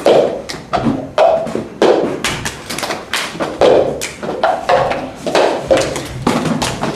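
Plastic cups tapped and thumped down on a hard floor in a cup-rhythm game, several players striking roughly together, about two to three hits a second.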